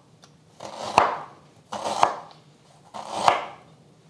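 Chef's knife slicing fresh ginger root on a wooden cutting board: three slow strokes about a second apart, each a short cut through the root ending in a sharp knock of the blade on the board.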